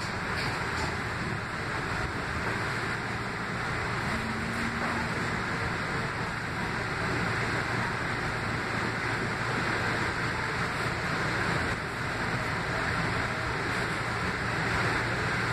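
Steady running noise inside a moving Kinki Sharyo light rail vehicle: an even rumble and rush from the wheels on the rails and the running gear.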